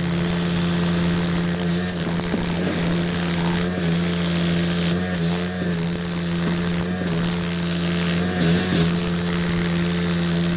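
Engine of heavy construction machinery running steadily at constant speed, with a strong, even hum.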